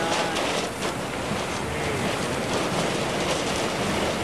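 Violent EF-5 tornado winds rushing around a car, heard from inside the vehicle, with rain and debris striking it many times.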